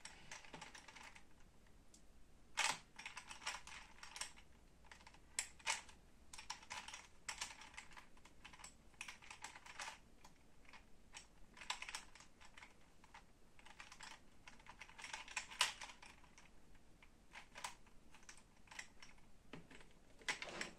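A plastic 3x3 Rubik's cube being turned by hand: quick, irregular clicking and clacking as the layers rotate and snap into place, coming in clusters with a few louder clacks.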